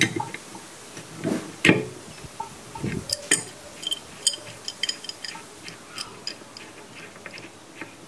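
Metal wrenches clicking and clinking on an aquarium's drain fitting as its plug is worked loose: a run of scattered sharp clicks and light knocks, the loudest about one and a half and three seconds in, thinning out towards the end.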